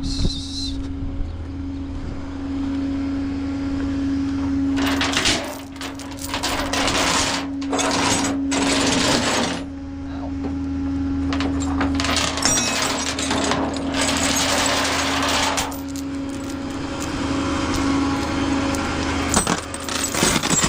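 A vehicle engine running steadily with a low hum. Over it come two long stretches of loud, harsh mechanical rattling and clattering, and a shorter one near the end.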